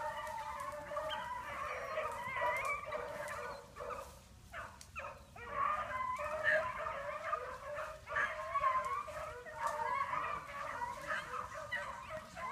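A pack of beagles baying in chorus on a rabbit's trail, several voices overlapping, with a brief lull about four to five seconds in.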